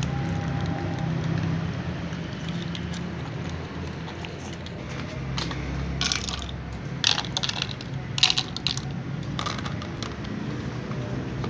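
Cats crunching dry kibble from plastic bowls, with a few short clusters of sharp crunches and clicks in the second half, over a steady low hum.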